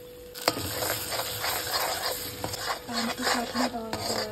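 Metal spatula stirring masala and fresh cream in a hot kadhai, sizzling, with quick repeated scraping strokes that start about half a second in with a knock on the pan. The cream is being cooked into the masala until it releases its oil.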